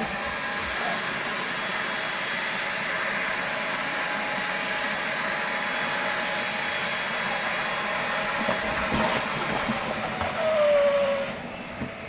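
Milwaukee M18 FUEL dual-battery wet/dry vacuum running on its low setting, sucking water up out of a bucket through its hose with a steady rushing hiss. About nine seconds in the slurping gets louder as the last of the water is drawn up, then the motor winds down with a falling whine near the end.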